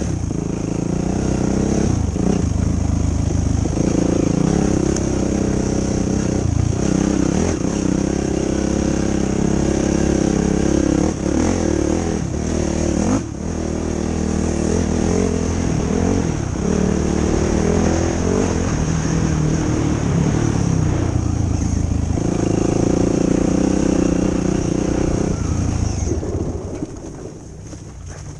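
A 2005 Yamaha YFZ450 quad's single-cylinder four-stroke engine being ridden hard, its pitch rising and falling as the throttle opens and closes. It eases off and goes quieter for a moment near the end.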